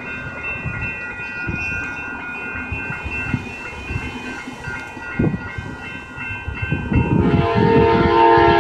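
An Amtrak passenger train approaching: a low rumble under a steady high ringing of warning bells. About seven seconds in, the locomotive's air horn comes in loud, a chord of several notes held on.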